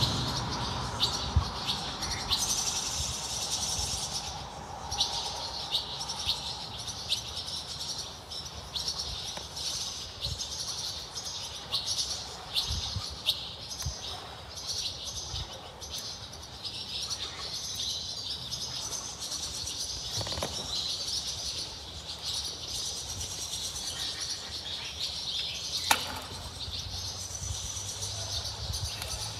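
Birds singing and chirping continuously, a dense chorus of overlapping high-pitched calls, with a single sharp click near the end.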